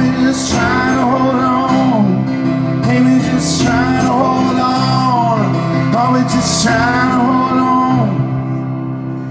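Live band playing the end of a song: sung vocal lines without clear words over guitar chords, with a cymbal crash about every three seconds. The singing stops about eight seconds in and the band's final chord rings out and fades.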